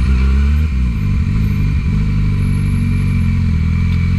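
Yamaha YZF-R1 inline-four engine idling; the revs rise a little and drop back in the first second, then hold steady.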